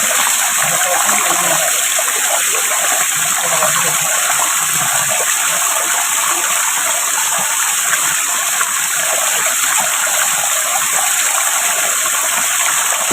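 Himchori waterfall: falling water rushing and splashing in a steady, even roar.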